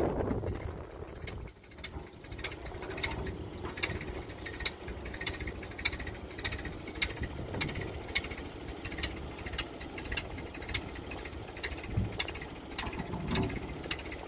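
Ford 8N tractor's gasoline four-cylinder engine running at a low, steady speed while the front loader is worked, with a light, regular ticking about one and a half times a second.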